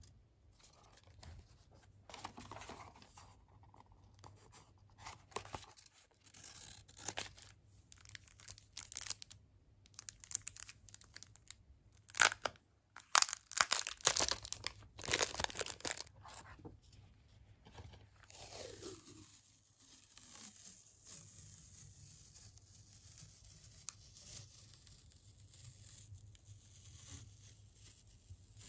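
Close-up handling of stationery. A paper sticker is peeled from its sheet, then the clear plastic film around a roll of masking tape is crinkled and torn open, loudest for a few seconds midway. Near the end the masking tape is pulled off the roll with quieter handling sounds.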